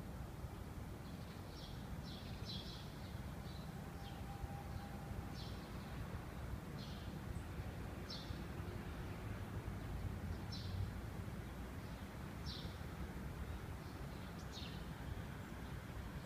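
A small songbird giving short, high chirps, repeated every second or two, over a steady low rumble of outdoor background noise.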